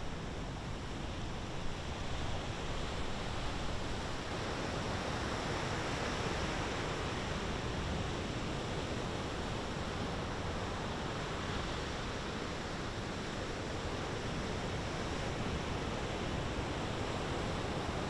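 Heavy surf breaking on a rocky shore: a steady rush of rough sea, swelling a little in the middle.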